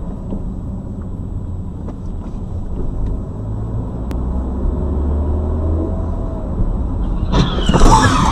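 Car engine and road rumble heard inside the cabin, the engine note rising for a couple of seconds midway as the car speeds up. About seven seconds in, a sudden loud, harsh noise breaks in and stays to the end.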